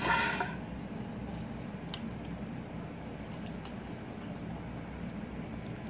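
Faint wet handling of fried bread slices being dipped in sugar syrup in a bowl, with a few light clicks over a steady low hum. A short rush of noise comes right at the start.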